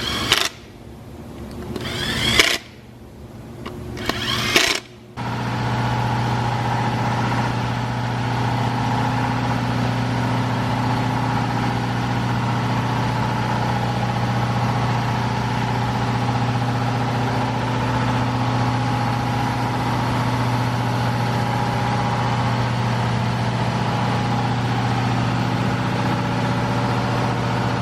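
Car engine started: a few short bursts that rise and cut off, then about five seconds in it catches and settles into a steady idle.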